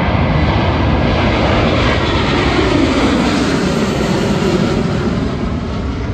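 Jet engines of a twin-engine widebody airliner at take-off power as it climbs out, loud and steady, the pitch falling a couple of seconds in as it passes overhead.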